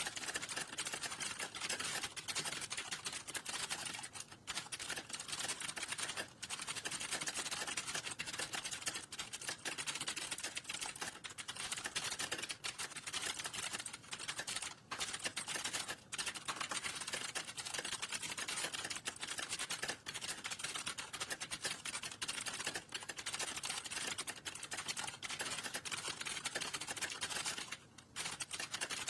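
Rapid, continuous typing on a computer keyboard, a dense stream of key clicks broken by a few short pauses, the longest about 28 seconds in.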